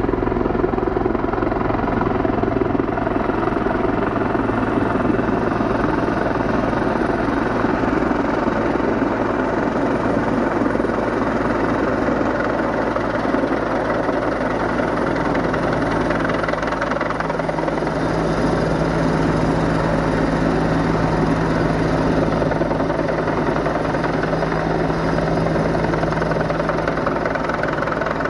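Jet boat engine of a Solar 470 Super Jet inflatable running steadily while the boat is underway on the river. A steady hum settles in at one pitch a little past halfway through.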